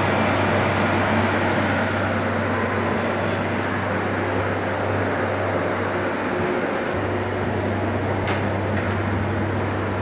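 Milk chiller's refrigeration unit running steadily, a low motor hum under an even mechanical rush of compressor and fan, while the unit, low on refrigerant, is being charged with gas. Two short clicks come a little past eight seconds in.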